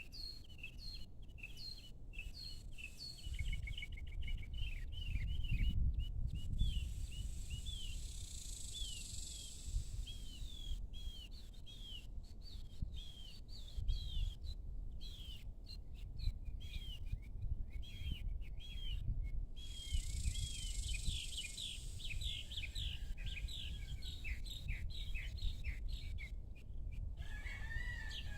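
Small birds chirping, a dense run of quick, short, repeated high chirps that carries on without a break, over a low rumble.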